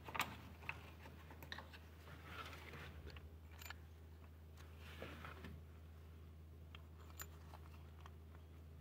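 Faint scattered clicks and light scraping from gloved hands and tools working around the engine's open injector bores, over a low steady hum.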